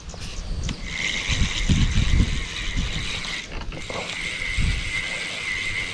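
Spinning reel being cranked, its gears clicking as line is wound in. A steady high buzz joins about a second in.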